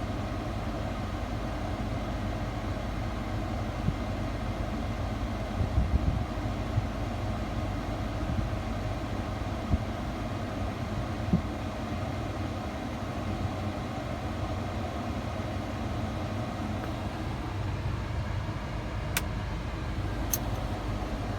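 Steady low rumble of a pickup truck's engine idling, with a few soft thumps and two sharp clicks near the end.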